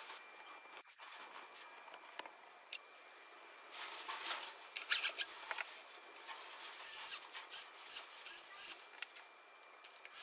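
Hands handling a stepper motor and fitting it onto the wooden Z-axis mount of a home-built CNC router: a few faint clicks, then from about four seconds in, irregular rubbing and scraping of the motor and parts against wood and metal, loudest a little after that.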